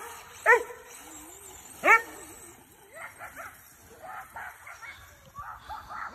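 A dog barking: three loud barks in the first two seconds, then fainter, scattered barks.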